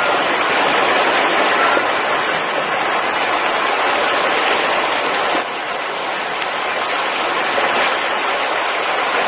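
Water flowing steadily over a road where salmon are crossing, a full, even rushing noise. It drops a little in level about five seconds in.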